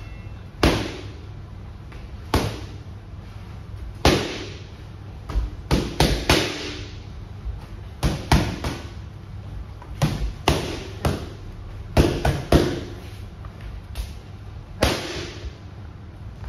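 Boxing gloves punching Title focus mitts: sharp smacks, some single and some in quick combinations of two to four, about twenty in all.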